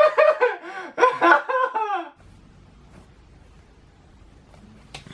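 A man's drawn-out, exaggerated cry of dismay at having broken something, for about two seconds, cut off suddenly. Then quiet room tone with a faint low hum.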